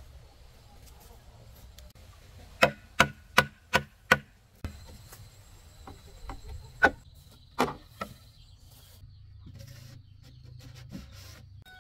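Chopping with a blade: a quick run of five sharp strokes about 0.4 s apart, then a few more scattered strokes a little later.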